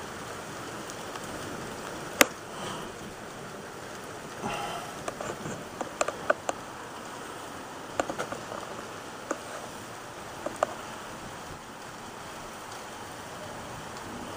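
Steady rain hiss with scattered sharp taps, the loudest about two seconds in and a cluster in the middle, like heavy drops striking a hard surface close by.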